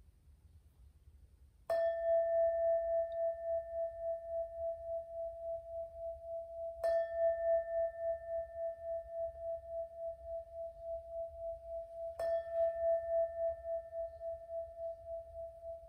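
Singing bowl struck three times, about five seconds apart, each strike ringing on in a long tone with a slow, pulsing waver that fades gradually.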